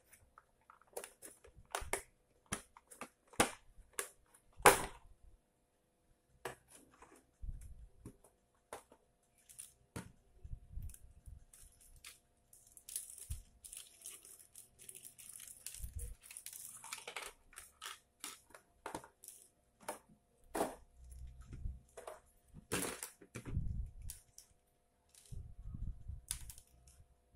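Clear plastic packaging and small plastic parts bags being handled: crinkling and crackling, loudest in a longer stretch midway, with scattered clicks and knocks of hard plastic parts against the table.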